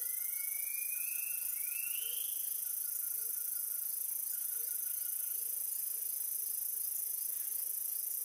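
Rainforest insect chorus: a steady high-pitched drone with faint, evenly repeating pulses. Two rising whistled calls sound in the first two seconds.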